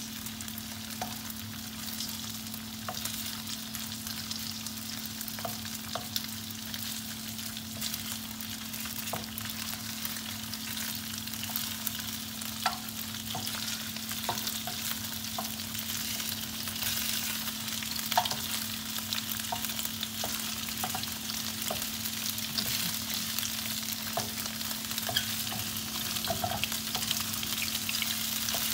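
Shrimp sizzling in hot grapeseed oil in a nonstick frying pan, with a wooden spatula scraping and tapping the pan now and then as they are stirred. A low steady hum runs underneath.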